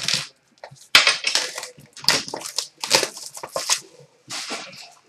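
Hockey card pack wrapper crinkling and tearing as it is opened by hand, in a string of crackly bursts from about a second in to near the end.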